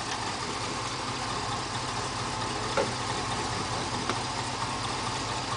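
Lifted GMC pickup's engine running steadily at idle as the truck creeps over rocks.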